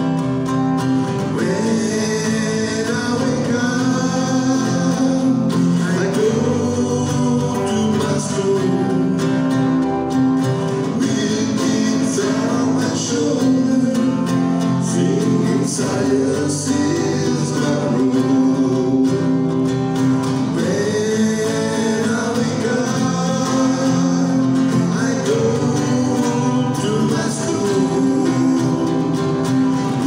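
Two acoustic guitars strumming chords, with a male voice singing a melody over them.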